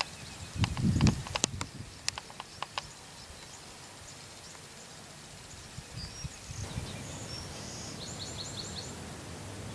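Outdoor ambience: a run of sharp clicks with a low thump in the first few seconds, then a small bird calling, ending with a quick series of five short chirps.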